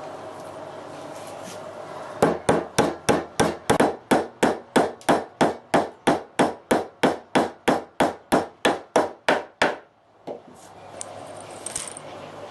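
Hammer striking wood in a fast, even series of about four blows a second, which stops abruptly after about seven and a half seconds.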